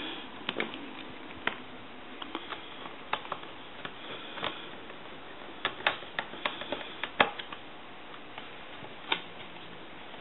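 Scattered light clicks and taps of small screws and parts being handled as a replacement bell is fitted into a telephone, with a few sharper clicks, over a faint steady hiss.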